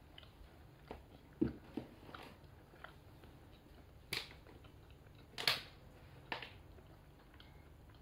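Someone eating chocolate Milo balls: quiet chewing with a handful of sharp lip smacks, the loudest about five and a half seconds in.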